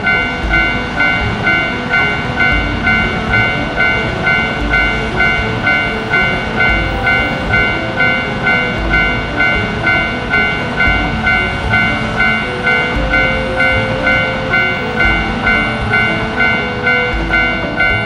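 Japanese railroad crossing alarm ringing its steady "kan-kan" in even, rapid strokes, with a high-speed bullet train passing and a low rhythmic rumble underneath.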